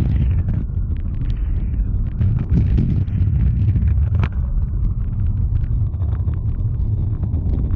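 Kick scooter's small wheels rolling over street asphalt: a steady low rumble with frequent sharp clicks from the road surface.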